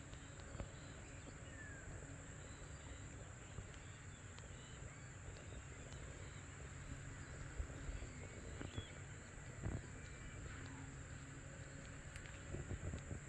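Quiet background with a steady high-pitched whine and a few faint, soft clicks.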